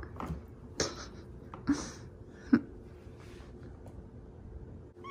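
Cats shifting on a cardboard cat-scratcher box, making about three short scuffs and rustles on the cardboard.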